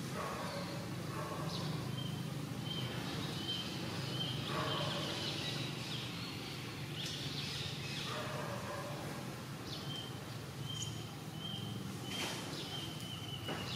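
Outdoor ambience: a steady low background hum, with a short, high, even-pitched call repeated about once every three quarters of a second in two runs, and a few faint rustles.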